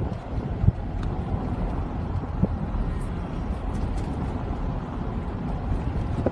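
Vehicle driving along with a steady low rumble, a few light knocks through it, the sharpest under a second in.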